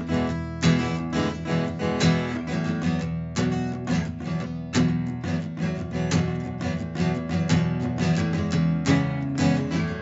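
Background music: acoustic guitar strummed and picked in a quick, continuous run of notes.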